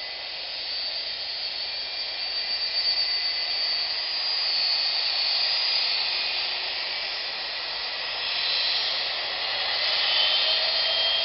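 Jet airliner's engines running at low taxi power: a steady high-pitched whine over a rushing hiss. About nine seconds in, further whine tones come in and rise slightly as the aircraft turns toward the viewer.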